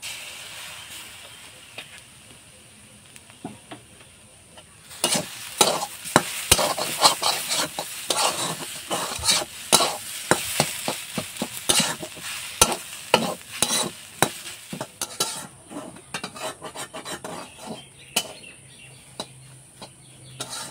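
Steel spatula stirring and scraping a soybean and potato filling around a hot metal kadai, with quick, repeated metal-on-metal scrapes. The filling sizzles in the oil at first, the hiss fading over the first few seconds before the scraping strokes come thick and fast about five seconds in, thinning out near the end.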